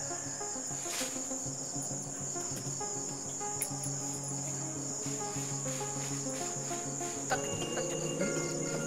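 Crickets chirping in a steady, high, continuous trill, over faint background music, with a few light clicks about a second in and again near the end.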